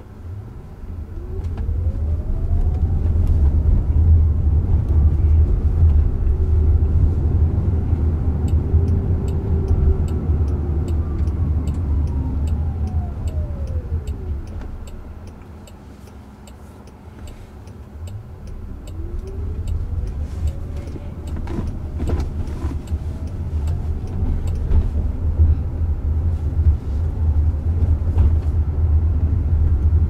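Electric drive motor whine of a Jaguar I-Pace heard inside the cabin over low road rumble. The whine rises in pitch as the car accelerates, falls away as it slows to a stop about halfway through, then rises again as it pulls off.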